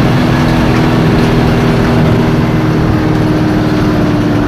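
Hino AK1J bus engine running steadily at highway speed, a constant engine note over heavy road and wind rumble.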